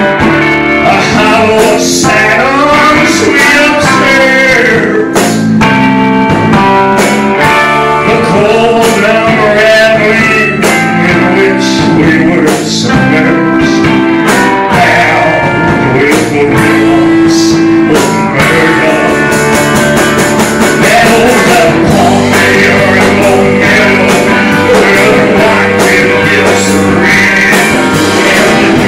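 Loud live rock band: a man sings into a handheld microphone over electric guitar and a drum kit.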